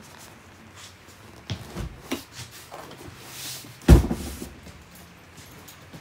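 A few light knocks, then one loud, heavy thump about four seconds in, with a brief hiss just before it: furniture or cabinetry being handled.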